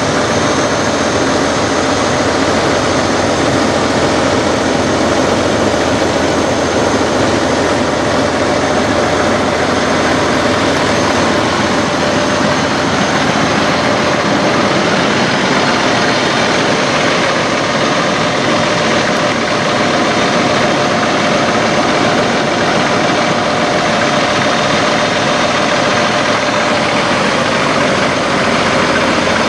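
Peterbilt 389 semi truck's diesel engine idling steadily, with a thin steady whine over the idle.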